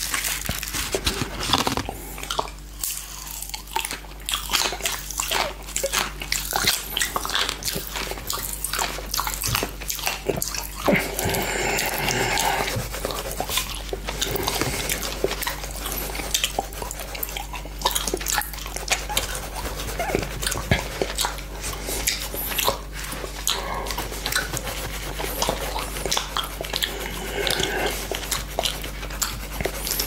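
Close-miked tongue licking a glass plate covered with Frizzy Pazzy popping candy: wet lapping with many small crackling pops.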